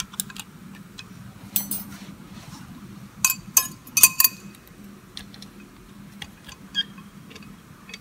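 Steel and friction discs of a multi-plate electromagnetic all-wheel-drive coupling clinking against one another as they are slid off the splines and handled, a few sharp metallic clinks with a short ring, most of them bunched between about three and four and a half seconds in, then lighter ticks.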